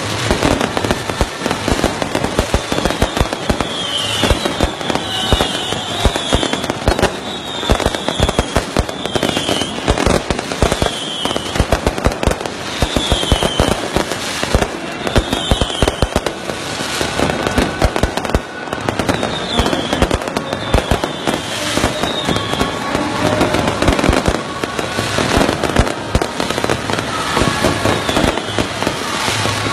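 Fireworks going off continuously: a dense, unbroken crackle of many sharp bangs and pops. Short high falling tones recur about once a second through the first two-thirds.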